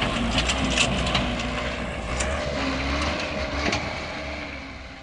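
Dump truck engine running with a steady low rumble, over scattered clicks and crunches; the sound fades out near the end.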